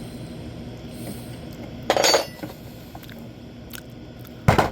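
A metal tool clanks with a short ring about halfway through, then a hard hammer blow lands near the end. The blows knock the tire's bead loose from the rim of an electric unicycle wheel.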